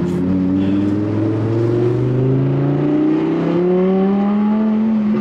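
Audi R8's naturally aspirated V10 running through a titanium valved exhaust, accelerating under load. The engine note climbs steadily in pitch for about four seconds, then holds.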